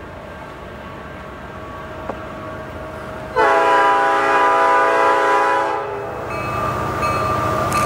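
Horn of an approaching CN diesel freight locomotive, an SD60F, sounding one long chord about three seconds in that lasts about two and a half seconds, over the faint rumble of the train. After it, the diesel engines grow louder as the train nears, with a single steady tone carrying on over them.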